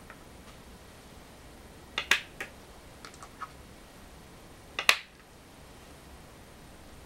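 Go stones being placed on a wooden go board. A sharp clack comes about two seconds in, then a few lighter clicks, then a second, louder clack just before five seconds.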